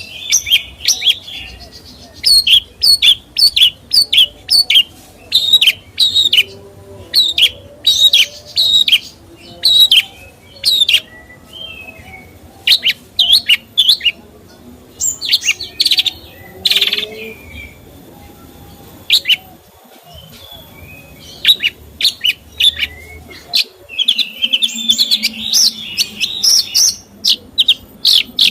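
A caged songbird chirping loudly in quick runs of short, sharp, high notes, falling quiet for a few seconds midway, then breaking into a denser twittering phrase near the end.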